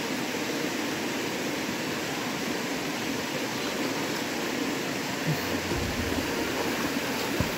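Steady rush of river water falling over rock terraces into a natural pool, an even noise with no change in level. There are a couple of faint low bumps near the end.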